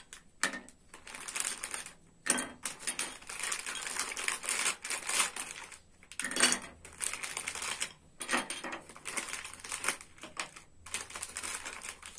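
A clear plastic packaging bag crinkles and rustles in bursts as small plastic toy furniture pieces are pulled out of it, with light clicks as the pieces are set down on a wooden table.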